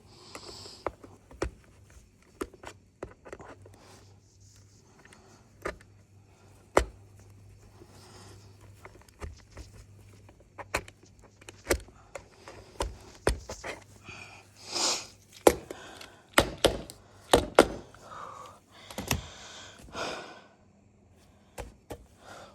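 Hands working on a chainsaw: scattered clicks, taps and knocks of tools and small parts, with a few short scraping or rustling noises in the second half, over a faint low hum.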